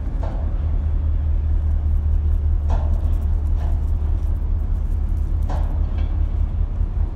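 Steady low rumble of the articulated tug's twin MaK diesel engines. A handful of short, sharp higher sounds break in over it at irregular intervals.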